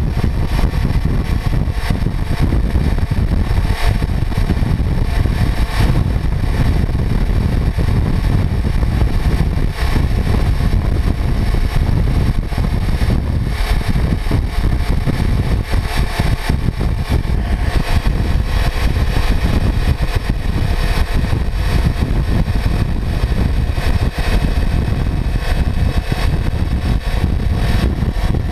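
Kawasaki Ninja 400 parallel-twin engine running steadily at road speed, under a heavy, even rumble of wind on the microphone.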